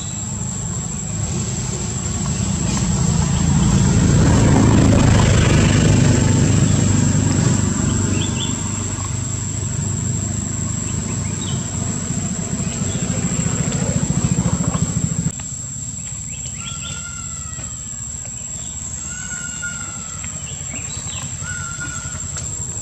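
A motor vehicle's engine rumble swells to a peak a few seconds in, then cuts off abruptly about two-thirds of the way through. After it, a few short high chirping calls sound over a steady high thin whine.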